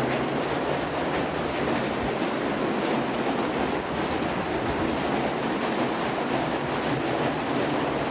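Pot of water with Maggi noodles boiling on a gas stove, a steady bubbling rush.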